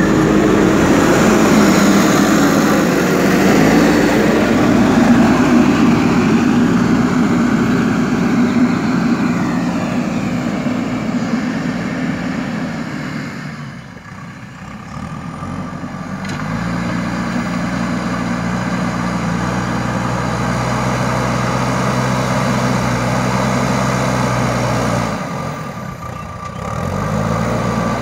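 JCB 3DX Super backhoe loader's diesel engine running steadily and loudly. It drops away about halfway through, then comes back at a steady pitch, with a short dip again near the end.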